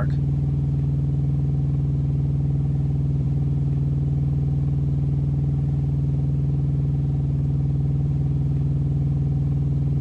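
A steady low hum made of several even tones, holding the same pitch and level throughout.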